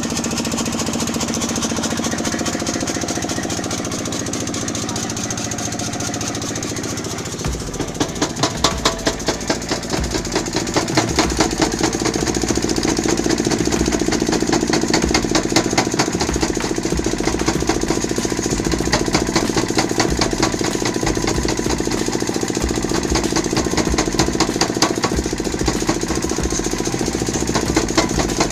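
Mechanical forging power hammer running with a steady hum from its motor and flywheel. About seven seconds in it starts striking red-hot steel with rapid, evenly spaced blows, several a second, and keeps up the hammering.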